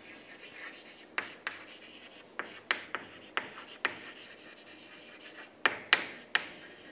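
Chalk writing on a chalkboard: a faint scratching as the letters are drawn, broken by about ten sharp taps of the chalk striking the board, several close together near the end.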